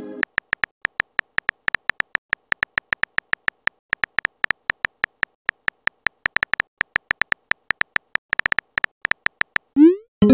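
Simulated phone-keyboard typing clicks: a quick, slightly uneven run of short ticks, about six a second, as a text message is typed out. Near the end comes a short rising whoosh and a send chime as the message goes off.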